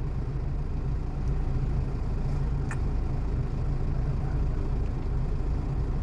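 A vehicle engine idling steadily with a low hum, with one faint click a little before the middle.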